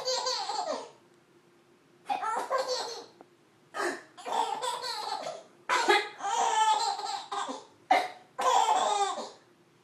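Baby belly-laughing in five bursts of about a second each. Several bursts follow a short, sharp mock cough from a woman.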